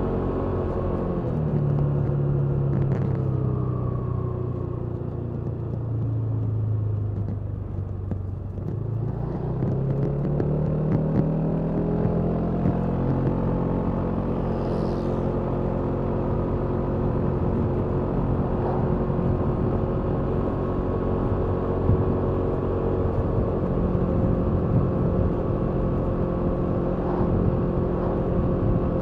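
Kymco Downtown 350i scooter's single-cylinder engine through its stock exhaust, heard onboard while riding. The engine note falls as the throttle is eased for the first several seconds, rises again as it accelerates about nine seconds in, then holds steady at cruising speed. Low wind and road noise run underneath.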